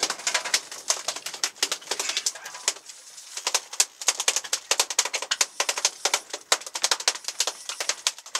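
Fishing reels clicking rapidly and unevenly as several hooked albacore tuna are fought, with a short lull about three seconds in.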